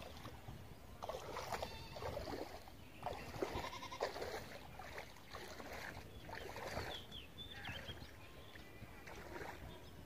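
Footsteps wading through a shallow stream, the water sloshing and splashing at each step about once a second.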